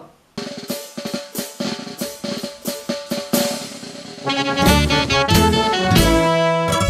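Marinera norteña music starting: an opening run of sharp snare-drum strikes, then about four seconds in the full band comes in with bass and horns.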